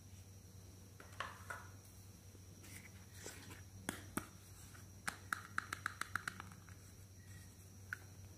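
Hands handling a small hard-plastic toy vanity mirror: scattered light clicks and taps, then a quick run of about eight clicks around the middle, over a faint steady hum.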